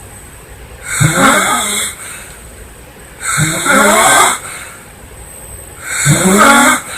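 A woman snoring loudly: three snores about two and a half seconds apart, each lasting about a second, with quieter breathing between them.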